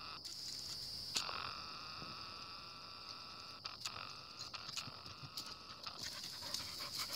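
Woodland insect chorus: a steady high buzz, joined about a second in by a lower pitched call that holds steady and stops about six seconds in. A few faint clicks sound over it.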